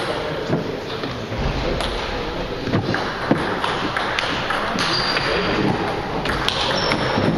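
Table tennis rally: the celluloid ball clicking off the players' paddles and bouncing on the table in sharp, irregularly spaced taps, over a steady hall background.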